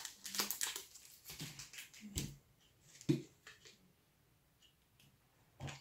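Food wrapper crinkling and rustling in the hands, then a few soft knocks and handling sounds about two to three seconds in, and a short thud near the end.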